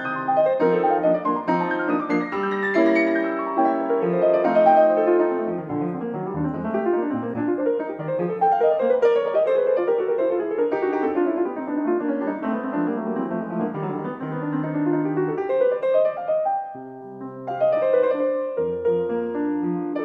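Background piano music, a flowing run of notes that thins out briefly near the end before resuming.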